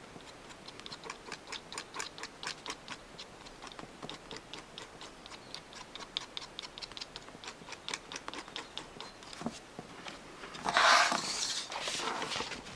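Two-part epoxy being stirred with a mixing stick on a card, the stick ticking against it in quick, regular strokes. Near the end comes a louder rustle of fabric and fur as the plush toy's head is handled.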